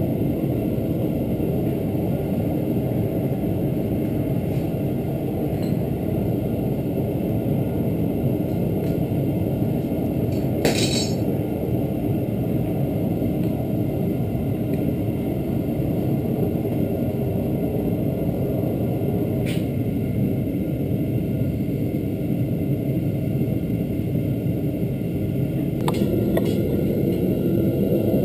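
Propane burner of a homemade foundry furnace running steadily with a low rushing noise; its partly blocked jet has cleared, so the gas is flowing fully. A few sharp metal clinks, the loudest about a third of the way in, come from scrap aluminium being handled with tongs at the crucible.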